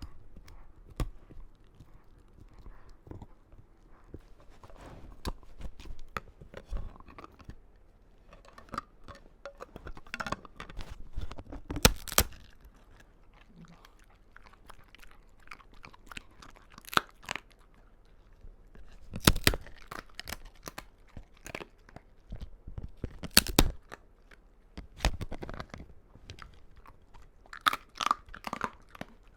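A dog chewing and crunching on a hard, long-lasting chew treat, with irregular bites and a few louder cracks.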